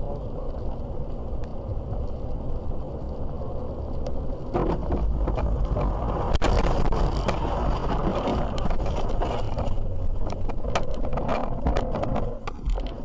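Car heard from inside the cabin, with a steady low rumble of road noise. From about four and a half seconds in there is a dense rattle of knocks and scrapes as the car bumps across a rough grass verge off the road, with one sharp knock about six seconds in.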